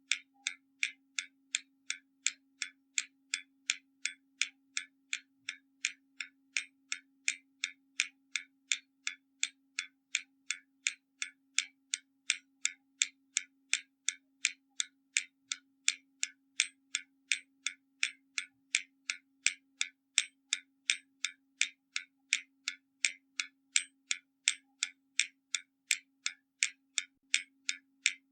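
Hermle German mechanical skeleton clock ticking steadily, about two sharp ticks a second. A faint steady low hum runs underneath.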